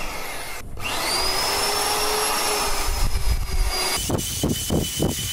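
Handheld electric paddle mixer running in a bucket of plaster mortar, its motor whining steadily as the paddle churns the mix, which is still lumpy and not yet creamy. About four seconds in the motor's tone shifts and a rhythmic churning comes through.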